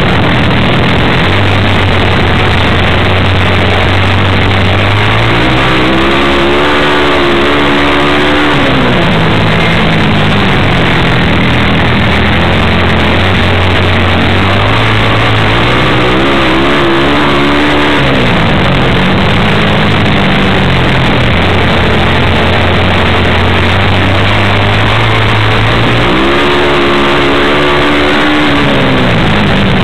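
Vintage flat-track racing motorcycle's engine heard onboard at racing speed. Its pitch climbs steeply and then drops back three times as the rider opens and rolls off the throttle around the dirt oval, over a loud steady rush of noise.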